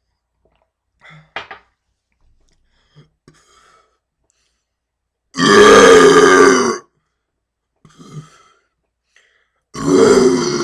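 Loud, deep, drawn-out burps: one about five seconds in lasting about a second and a half, and another starting near the end, with a few faint short sounds between them.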